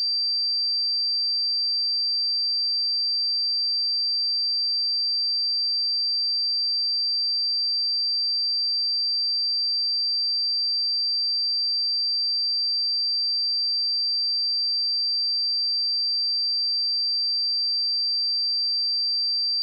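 A pure 4693 Hz sine-wave test tone, one high-pitched steady tone at constant level, used to check speakers and headphones.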